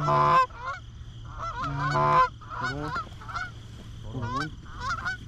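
A flock of Canada geese honking, many short overlapping calls in quick succession, with two louder, drawn-out honks right at the start and about two seconds in.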